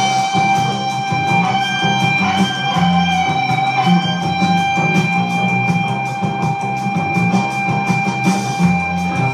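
Electric guitar jamming, one high note held on and on for nearly the whole time over a repeating low figure, while drumsticks beat a steady rhythm on a makeshift surface.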